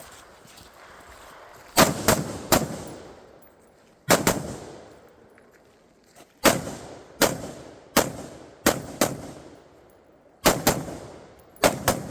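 Rifle shots fired in quick strings of two or three, about a dozen in all, with pauses of a second or more between strings; each crack dies away quickly.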